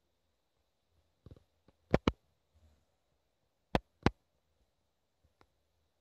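A few sharp clicks against a quiet background: two quick pairs, about two seconds in and about four seconds in, with fainter ticks in between and near the end.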